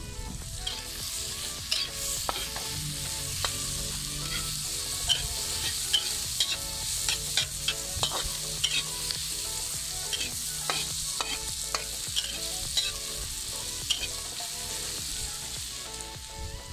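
Onions and garlic sizzling in hot oil in a metal wok, with a metal spatula stirring and scraping them, clicking against the pan many times.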